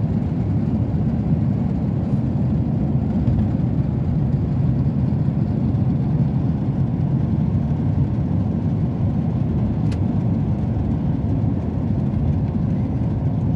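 Car driving at speed, heard from inside the cabin: a steady low rumble of tyres on the road and the engine.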